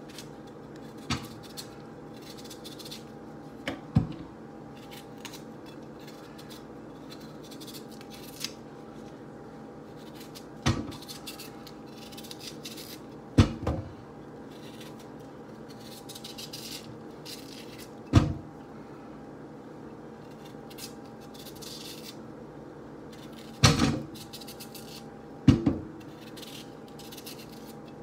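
Hand-peeling yam with a kitchen knife: faint scraping strokes, with seven sharp knocks a few seconds apart, over a steady low hum.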